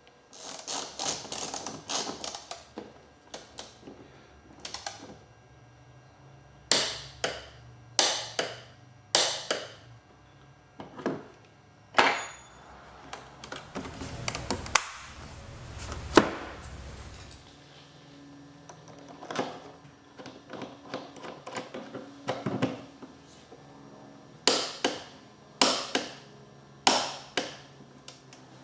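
Irregular series of sharp mechanical clicks and knocks, some in quick runs of several, with quieter handling noise between them.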